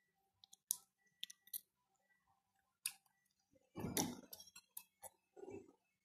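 A person drinking from a plastic cup: a few faint clicks of the cup and mouth, then two gulping swallows in the second half.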